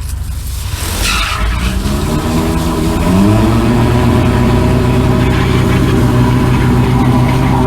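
Drain-jetting machine's engine and pump revving up from a low run to full speed, rising in pitch over a couple of seconds, then running steadily under load to flush the pipe.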